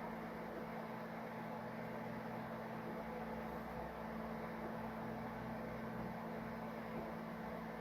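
3D printer running a print: its stepper motors and cooling fan make a steady hum with a few held tones.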